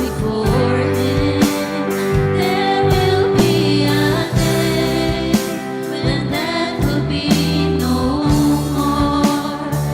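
Church worship band playing a Christian worship song with singers, over a steady drum beat and sustained bass.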